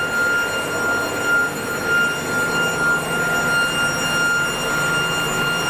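Air blower of a small metal-melting furnace running with a steady high whine over a constant rush of air.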